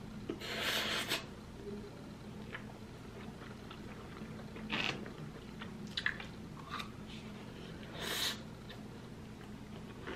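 Wet slurping of cheesy spicy instant noodles off a fork, with close-up chewing. Crisp crunching clicks come as a baby cucumber is bitten about six seconds in, and shorter slurps follow.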